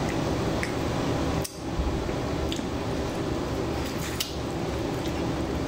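A person biting into and chewing a piece of grilled chicken dipped in sauce, with a few faint small clicks, over a steady low background hum.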